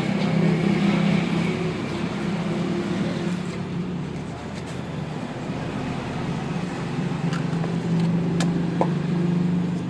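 A motor vehicle engine running steadily with a low hum, with a few light clicks near the end.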